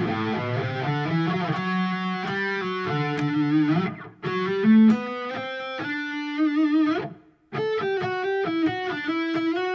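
Eight-string electric guitar playing a single-note melodic run through the E minor scale in three phrases, with a short break about four seconds in and again about seven seconds in, the tone lightly distorted and with a wavering vibrato near the end of the second phrase.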